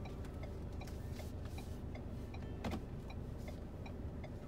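Steady electronic ticking, about three ticks a second, over the low hum of a car cabin with the engine running.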